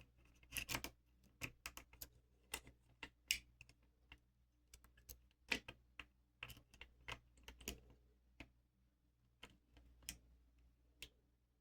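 Faint, irregular metallic clicks and ticks of a lock pick working the pins inside a lock cylinder held under tension.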